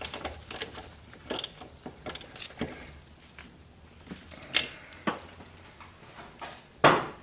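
Hand ratchet clicking in short irregular runs while the brake master cylinder's mounting nuts are tightened down, with sharp metal clinks from the socket and extension and a louder clack near the end.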